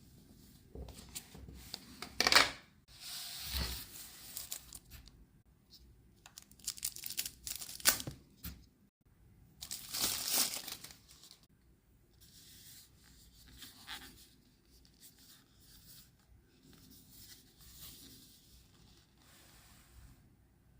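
Packaging being torn open and crinkled by hand, in irregular bursts that are loudest in the first half and fade to lighter rustling.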